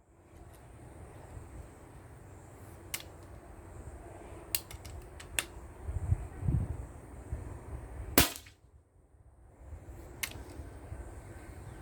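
A single sharp shot from a Steyr LG110 pre-charged pneumatic air rifle about eight seconds in, over a rumble of wind on the microphone, with a few light clicks before and after.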